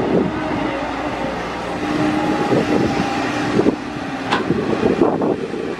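Caterpillar 312B hydraulic excavator running under load as it digs, its diesel engine humming steadily, with a brief high squeal a little over four seconds in and irregular knocks near the end.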